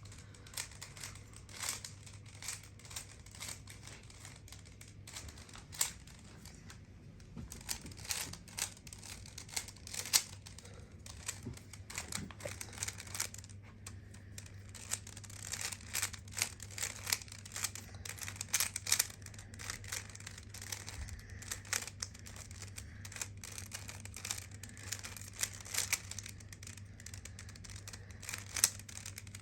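Rubik's cube being turned quickly: a run of irregular plastic clicks and clacks as the layers are twisted, over a steady low hum.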